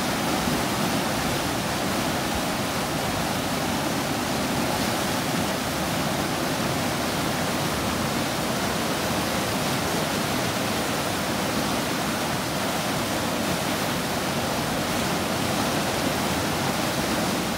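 Whitewater river rapid rushing steadily, an even hiss of churning water pouring through a standing wave.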